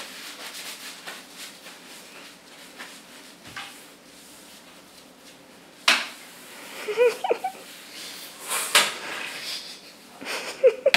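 Sparse clicks and knocks of kitchen things being handled, quiet for the first several seconds, then a few sharp clacks about six and nine seconds in, with a short high-pitched sound about seven seconds in.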